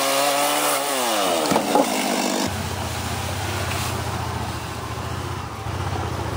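Gas chainsaw cutting through old weathered wood, its engine pitch dipping and rising as it bogs in the cut and revs back up, with a couple of sharp knocks. After about two and a half seconds, a Honda side-by-side's engine running with a steady low note.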